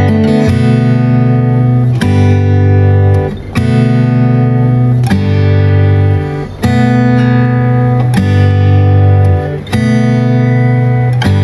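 Background music: strummed acoustic guitar chords, changing about every one and a half seconds.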